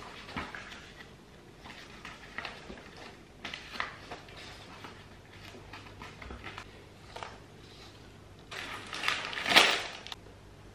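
Paper rustling as sheets of assembly instructions are handled and turned, with small clicks and handling noises. Near the end comes a louder, longer crinkling of a paper bag of hardware being handled.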